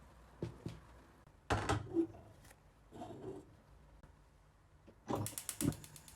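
Kitchen handling sounds: a few light knocks, a louder clatter of utensils or cookware about a second and a half in, and a quick run of sharp ratchet-like clicks near the end.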